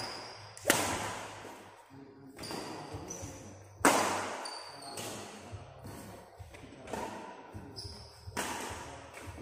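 Rackets striking a shuttlecock in a badminton singles rally: about five sharp cracks that ring on in the hall, the hardest about four seconds in, with short high squeaks of shoes on the court between the hits.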